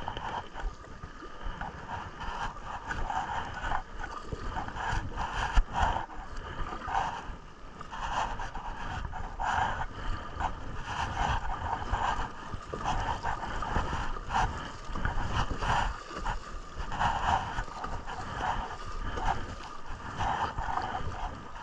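River water rushing and splashing around a kayak, with low rumble on the action camera's microphone; the sound swells and fades every second or so.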